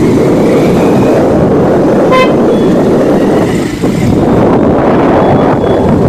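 Loud, dense rushing road noise with a short vehicle horn toot about two seconds in.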